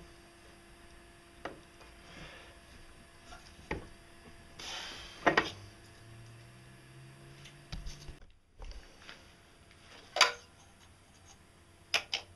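Hand work on metal parts at a bench vise: scattered clinks and knocks, a short scrape ending in a sharp metal knock about five seconds in, and two more sharp knocks later on.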